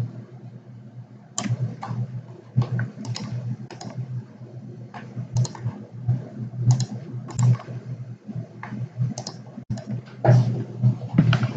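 Irregular clicks and keystrokes of a computer mouse and keyboard, over a low steady hum.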